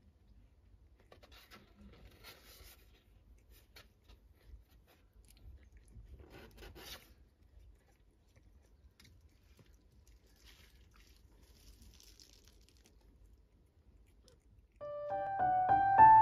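Faint scattered rustles and small clicks as newborn kittens and their mother cat stir on a blanket. A gentle piano tune starts near the end and is the loudest sound.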